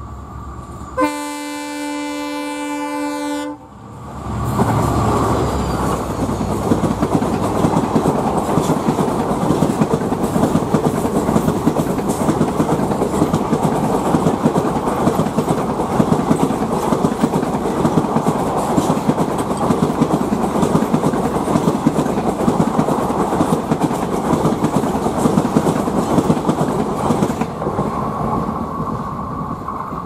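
WDP4D EMD diesel locomotive sounding its multi-tone horn in one blast of about two and a half seconds, then the locomotive and its passenger coaches passing at speed, wheels clattering rhythmically over the rail joints. The rolling noise drops off near the end as the train goes away.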